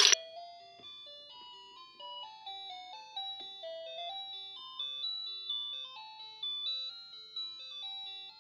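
A simple electronic ice-cream-van-style tune, played one clean note at a time with the notes stepping up and down. A brief loud burst sounds at the very start.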